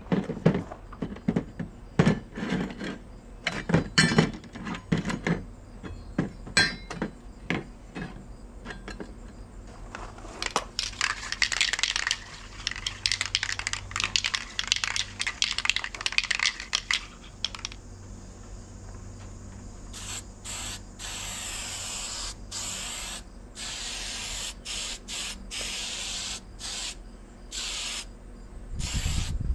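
An aerosol can of Duplicolor truck bed liner. After several sharp knocks in the first few seconds, the can is shaken hard with its mixing ball rattling fast for about seven seconds, then sprayed in short hissing bursts through the last ten seconds.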